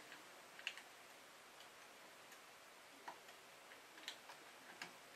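Near silence broken by faint, irregular small clicks and ticks of fingers handling and twisting thin bus wires at the alarm panel's terminal strip.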